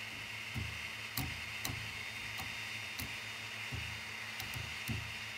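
The tensioned drive belt of an Anet A8 3D printer, plucked by hand about eight times. Each pluck gives a short, low twang, and its pitch shows the belt has been tightened to the tension the owner found works.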